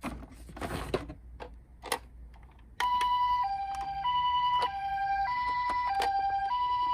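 Japanese-style two-tone ambulance siren, a high note and a low note taking turns about every 0.6 seconds, which starts a little under three seconds in. Before it come a short hiss and a few sharp clicks.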